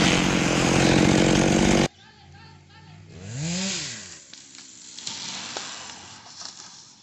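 Chainsaw running at high revs, cutting off abruptly about two seconds in. A much quieter stretch follows, with one brief pitched sound that rises and falls.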